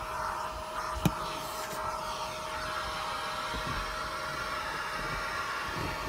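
Eureka Mighty Mite canister vacuum running steadily, a constant whine over its airflow noise, with a single sharp knock about a second in.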